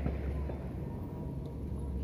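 Low, steady wind rumble on the microphone.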